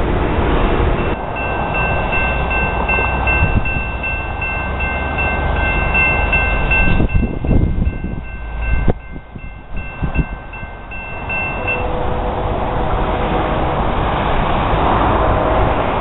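Grade-crossing warning bell ringing in steady repeated strokes, stopping about three-quarters of the way through, then a MAX light-rail train approaching with a low running hum.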